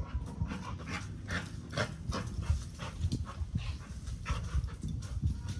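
A bully-breed dog panting hard, in a run of quick breathy puffs.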